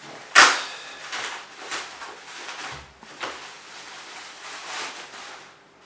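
Clear plastic wrapping crinkling and rustling in the hands as it is pulled open, with a sharp, loud rustle about half a second in and several softer ones after.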